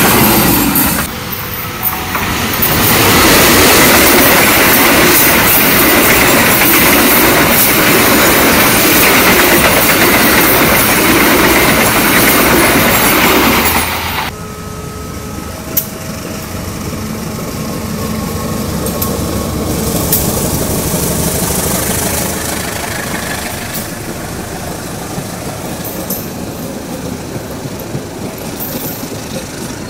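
Passenger train coaches passing close by on the track, loud and steady. About 14 s in the sound drops suddenly to a quieter, more distant steady train noise as another train rolls past.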